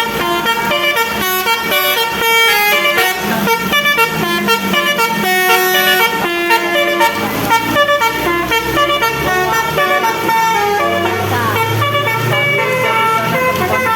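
Bus telolet air horns playing a fast multi-note melody, the tones stepping up and down every fraction of a second. A low engine drone joins near the end.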